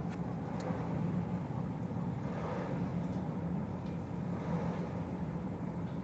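Steady low mechanical hum and rumble of city background noise, with a few faint clicks.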